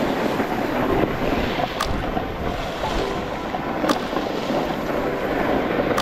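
Wind rushing over the microphone and skis hissing across snow during a downhill run, a steady noisy roar. Three short sharp clicks come about two seconds apart.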